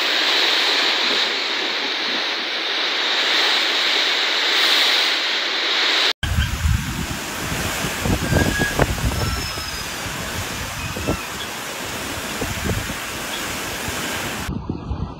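Cyclone-force wind and torrential rain: first a steady hiss of heavy rain, then, after an abrupt cut about six seconds in, gusting wind buffeting the microphone over the rain.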